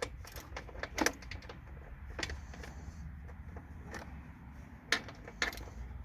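Scattered light metallic clicks and taps of a tool tightening bolts on the engine's top cover, a handful of separate clicks spread irregularly over a few seconds.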